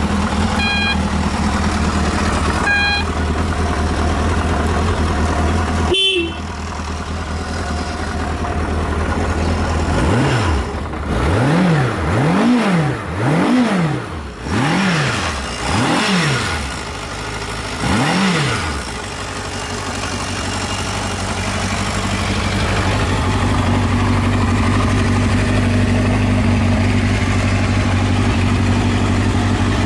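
1978 Kawasaki Z650's air-cooled inline-four idling, then blipped through about six quick revs that rise and fall back before settling to a steady idle; the seller describes it as revving up well with no abnormal noises. Two short beeps sound near the start and a sharp click about six seconds in.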